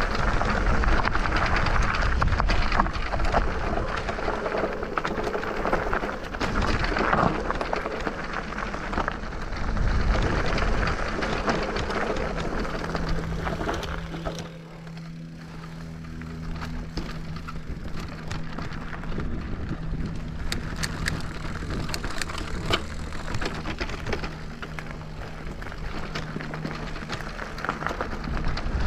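Electric off-road bike riding over a rough trail: tyres crunching and rattling over stones with wind and chassis noise. From about halfway the crunching eases, and a steady low electric-motor hum comes through.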